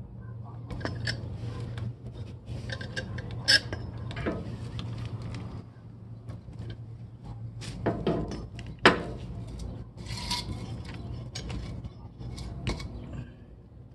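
C-clamp screw being turned by its T-handle, pressing a U-joint bearing cup out of a PTO shaft yoke: metal-on-metal rubbing and scraping with scattered clicks, and two louder sharp clicks, a few seconds in and about nine seconds in.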